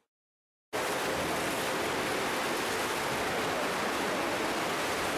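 Steady splashing of several swimmers doing laps in an indoor swimming pool, an even watery wash that starts abruptly just under a second in after a brief silence.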